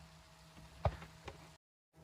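Two light knocks of a cooking utensil against a pan, one sharp and one softer about half a second later, over a faint steady hum. The sound cuts out completely for a moment near the end.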